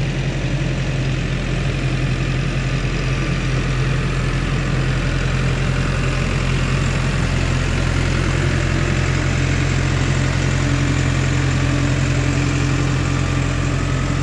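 New Holland tractor's diesel engine running steadily at low revs, an even, unchanging drone.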